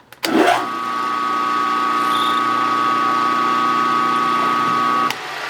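A milling machine's spindle motor starts, runs at a steady speed for about five seconds with a constant whine, then is switched off. The spindle is driving a 0.113-inch drill to open up a locating hole.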